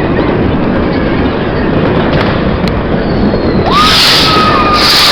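New Year's Eve fireworks and firecrackers crackling densely. A steady high whistle joins about four seconds in.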